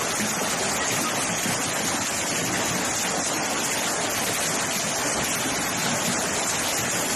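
A heavy hailstorm: hail and rain pouring down in a steady, dense hiss that doesn't let up.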